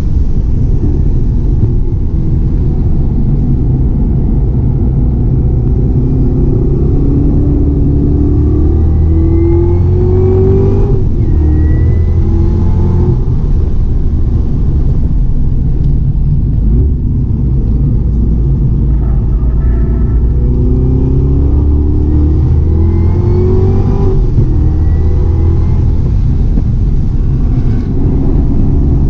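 2018 Camaro ZL1 1LE's supercharged 6.2-litre V8 driven hard on a race track. The revs climb again and again and fall back between the pulls.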